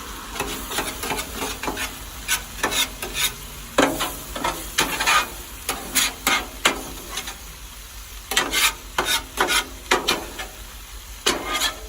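Chicken fajitas sizzling on a hot Blackstone flat-top griddle while a metal spatula scrapes and turns them, in a run of short, irregular scrapes.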